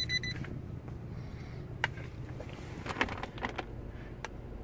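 Steady low hum of the truck's running engine and AC blower heard inside the cab. A quick run of short electronic beeps from the infrared thermometer comes right at the start, and several plastic clicks and taps from handling it come in the middle.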